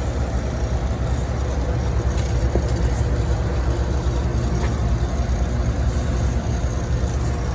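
Steady low rumble of running machinery, an even engine-like hum with hiss above it.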